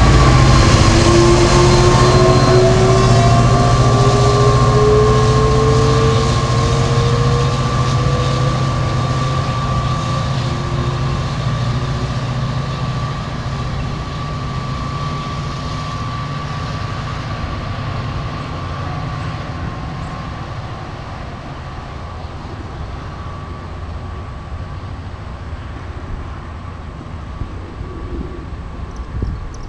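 Diesel locomotive and bilevel passenger train pulling away from a station. A low engine hum is joined by a whine that rises in pitch as the train gathers speed, and the whole sound fades steadily as it recedes.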